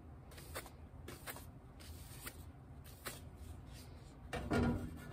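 Paper towel wiping a copper plate with denatured alcohol, the last degreasing before hard ground: faint, brief swishes and rubs at irregular intervals. A louder handling noise near the end as the plate is lifted.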